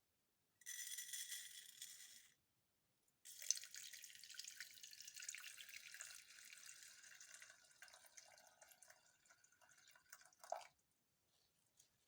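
Water being poured into a vessel, quietly: a short pour with a ringing tone about half a second in, then a longer pour of about seven seconds that thins out, with a sharp clink near its start and a knock near its end.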